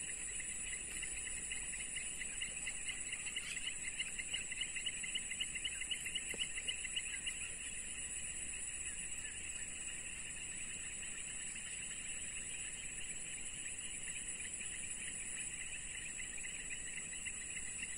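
Steady chorus of insects chirring: one continuous high-pitched band with a lower, rapidly pulsing trill beneath it that swells a few seconds in.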